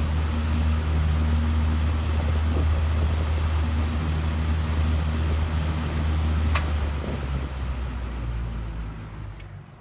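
14-inch Phoenix box fan with a two-speed General Electric motor, running on high with a steady low motor hum and rushing air. About six and a half seconds in there is a sharp click, after which the hum and air noise fade away as the fan slows.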